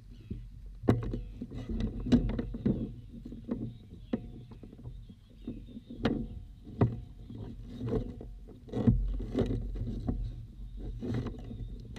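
Irregular knocks, clicks and rustles of fishing tackle and a bag being handled aboard a plastic fishing kayak, some knocks sharp and loud, over a steady low rumble of wind and water.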